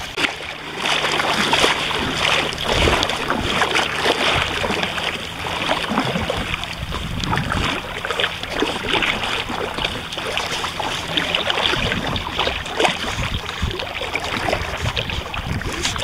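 Shallow sea water splashing and sloshing close by, a dense, irregular run of small splashes.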